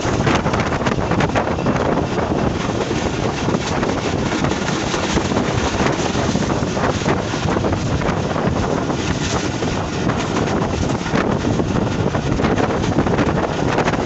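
Wind buffeting the microphone held out of a moving passenger train, over the steady rumble and clatter of the coaches running on the track.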